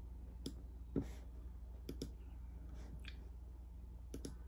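Computer mouse clicking about eight times at irregular intervals, a louder click about a second in, over a low steady hum.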